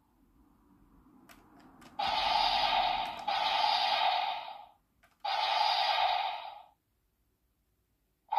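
Premium DX Laser Raise Riser toy's small built-in speaker playing a hissing, noisy sound effect in two long bursts, after a few faint clicks.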